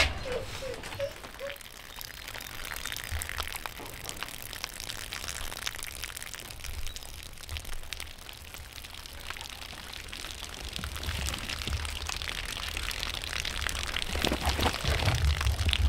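Light rain falling: a steady hiss with many scattered drops ticking. A low rumble grows louder in the last few seconds.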